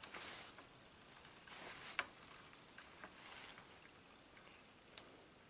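Faint handling noise from a handheld borescope: a few soft swishes and two sharp clicks, one about two seconds in and one near the end.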